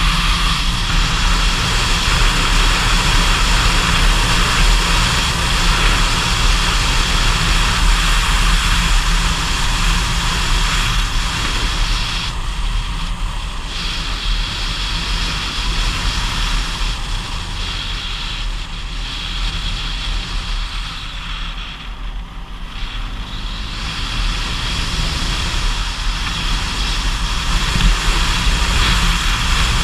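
Steady rush of wind and road noise over a GoPro action camera's microphone on a vehicle climbing a mountain road, with a low engine drone beneath. It eases off briefly a little past the middle, then builds again.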